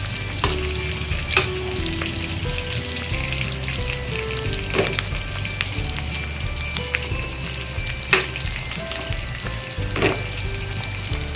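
Pork chunks frying in bubbling oil in an aluminium wok: a steady sizzle with sharp crackles now and then, the loudest about eight seconds in.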